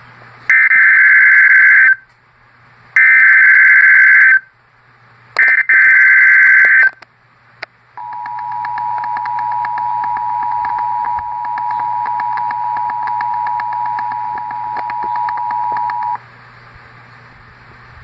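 Emergency Alert System alert: three short bursts of warbling SAME header data tones, then the two-tone EAS attention signal, held steady for about eight seconds before cutting off.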